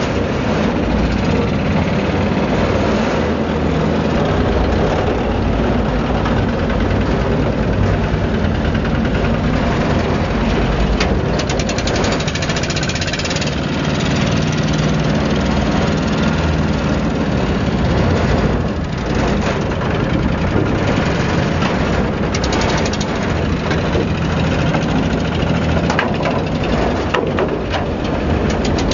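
An engine running steadily with a low, even throb; it eases for a moment about two-thirds of the way through.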